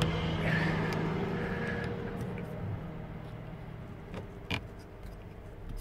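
A vehicle's low hum fades out over the first two seconds. Then come a few sharp small clicks, the loudest about four and a half seconds in, as metal-capped festoon bulbs are pried and pulled from the dome-light sockets.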